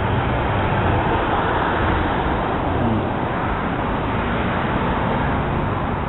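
Steady rumbling noise of road traffic passing close by, with no distinct events.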